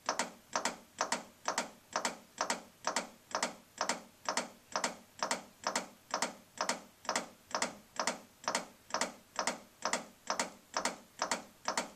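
CPR training manikin's chest being pressed in chest compressions, a sharp click with each press at an even pace of about two a second.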